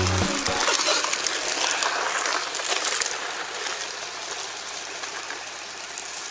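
Background music ends about half a second in. It leaves a steady rushing noise heard from inside a car, which slowly fades over the following seconds.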